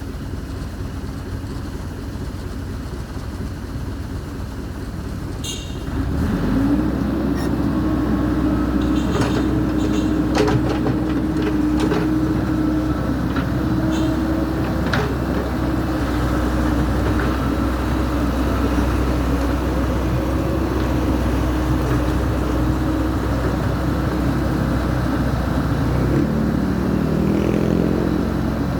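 Backhoe's diesel engine idling, then revving up sharply about six seconds in and holding at higher revs, with a few metallic clanks; the engine note shifts in pitch near the end.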